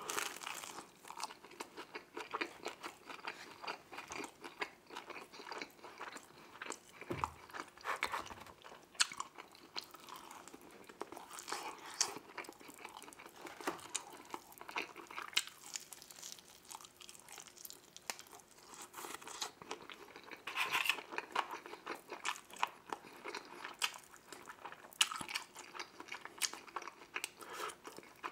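Close-miked eating of deep-dish pizza and then a buffalo wing: a stream of irregular crunches and wet chewing clicks.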